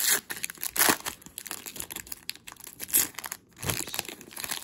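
Foil wrapper of a 2015-16 Upper Deck Portfolio hockey card pack being torn open and pulled apart by hand, crinkling in several short bursts.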